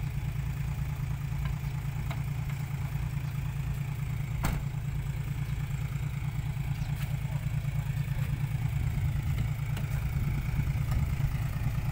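Diesel engine of a tipper truck idling steadily with its dump bed raised, with a single sharp knock about four and a half seconds in.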